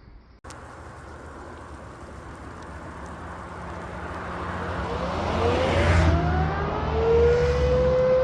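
Civil defence siren starting up: a rushing noise swells for several seconds, then the pitch glides upward and settles on a steady tone near the end.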